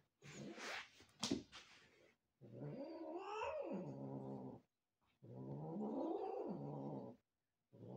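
A cat yowling: two long, drawn-out caterwauls about two seconds each, the pitch rising and then falling, after a few short knocks near the start.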